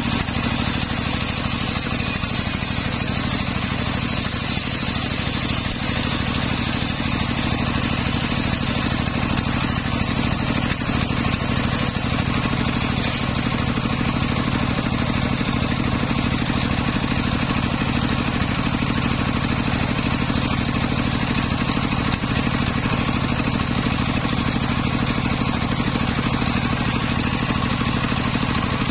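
Engine-driven, belt-driven circular sawmill ripping a long waru (sea hibiscus) timber: the big blade cuts steadily under load over the engine running beneath it, without a break.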